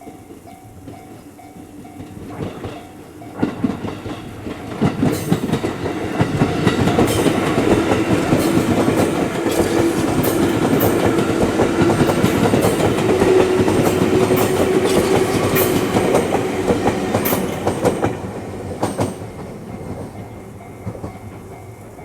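Electric train passing over a level crossing: wheels clacking over the rail joints in quick runs, building up for a few seconds, then a long loud passage of running noise that dies away about three seconds before the end.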